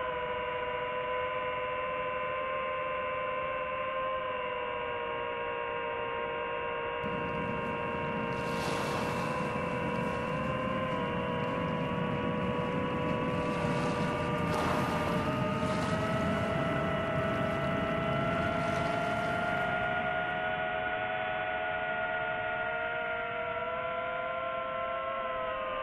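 DJI FPV quadcopter's motors and propellers whining: several steady tones that drift slowly up and down in pitch as the throttle changes, with a rushing noise joining in between about 7 and 20 seconds in.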